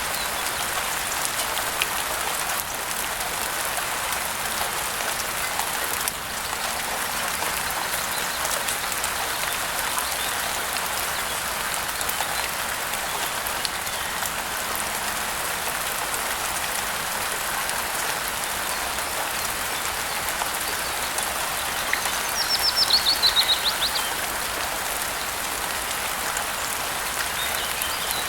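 Steady rain falling, with scattered drops pattering. About three-quarters of the way through, a bird gives one quick trill of notes that fall in pitch, over about a second and a half.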